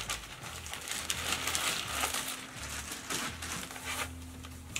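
Clear plastic bag crinkling and rustling as a handbag is pulled out of it, loudest in the first two seconds or so and dying down after.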